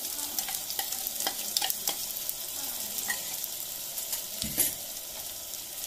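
Ground masala paste frying in hot ghee with onions in a steel pot, sizzling steadily while a spoon stirs and scrapes it, with many short clicks of the spoon against the pot and a low thump about four and a half seconds in.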